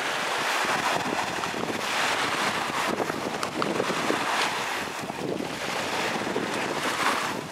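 Small waves washing up and draining back on a sandy shore, a hiss that swells and eases every couple of seconds, with wind buffeting the microphone.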